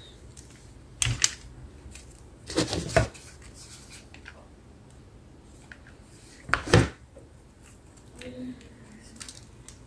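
Scissors snipping in three short bursts a few seconds apart.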